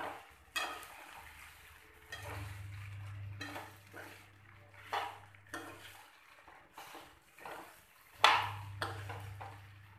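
Steel spatula scraping and clinking against a frying pan while stirring cut okra in oil, in irregular strokes, the loudest about eight seconds in.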